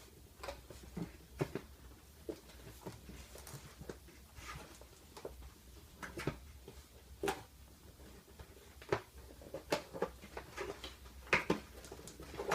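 Scissors snipping and cutting at packaging, with plastic crinkling and handling noise: a string of irregular sharp clicks and crackles, a few louder snips about seven, nine and eleven seconds in.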